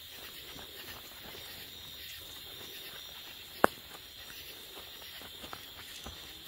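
Footsteps and light rustling of a person and terriers moving over a dirt trail through brush, over a steady high chirring of night insects. One sharp click about three and a half seconds in is the loudest sound.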